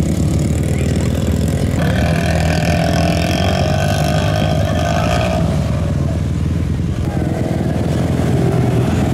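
Racing ATV engines running hard over a steady low rumble. One engine note stands out from about two seconds in until it fades around five and a half seconds, and another comes up near the end as quads pass.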